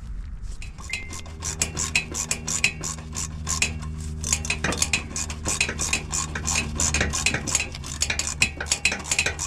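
Ratchet wrench clicking rapidly and steadily while backing out an exhaust bolt, with metallic clinks of the tool.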